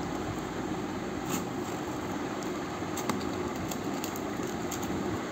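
A steady low hum, with a few faint short clicks and scrapes as a knife blade cuts into a cardboard shipping carton.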